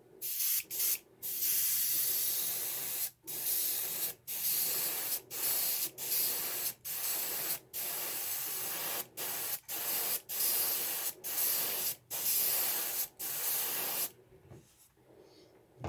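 Airbrush spraying paint: a steady hiss in a long string of short bursts, each broken off by a brief gap as the trigger is released, while a thin lateral line is sprayed along a wooden lure. The spraying stops near the end.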